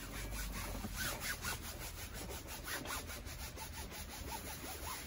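Rhythmic rasping, rubbing strokes, about five a second, over a low rumble.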